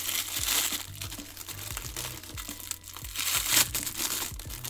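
Clear plastic wrap crinkling as it is peeled off a stack of washi tape rolls, in irregular crackles, loudest about three and a half seconds in.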